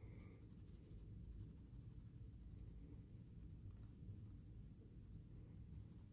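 Faint scratching, on and off, of a cotton swab scrubbing gunk off the copper commutator of a small model-locomotive motor, over a low steady room rumble.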